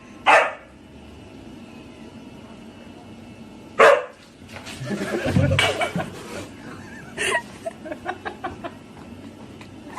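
A dog barking in single short barks: one near the start, a louder one about four seconds in and another about seven seconds in. Between them come a stretch of rumbling noise and, near the end, a quick run of light ticks.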